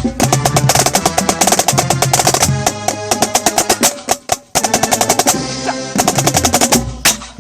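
Drum corps playing, with a snare drum up close: fast rudimental strokes and rolls over the rest of the ensemble. The music drops away briefly about four seconds in, then comes back in full.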